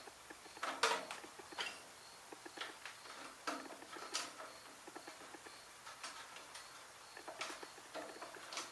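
Irregular light clicks and scrapes of a hand tool working a snug fastener loose on a Briggs and Stratton 5 hp engine, about one cluster a second.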